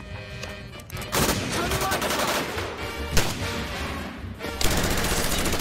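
Gunfire: a shot about a second in, a louder single shot about three seconds in, then rapid automatic fire from about four and a half seconds on, with background music underneath.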